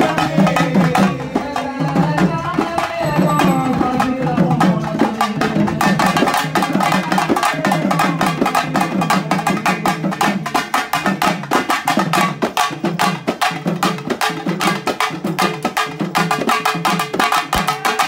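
Tamil devotional Murugan song sung into a microphone over drums, then fast, dense drumming on twin-headed pambai drums and snare drums from about six seconds in.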